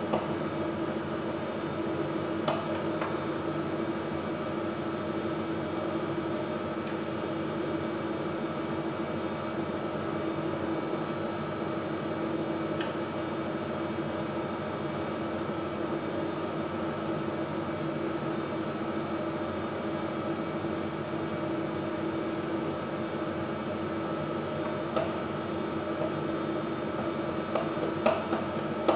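Steady whirring hum of a kitchen appliance's fan with a steady low tone. A few light clicks of chopsticks against a bowl or pot, about two and a half seconds in and twice near the end.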